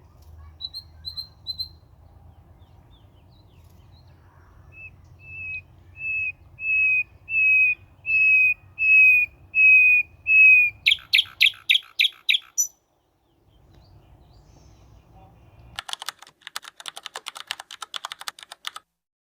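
A bird calling: a series of about ten clear whistled notes, each slightly falling and growing louder, breaks into a quick run of harsher notes, then after a short pause a fast chatter of rapid notes.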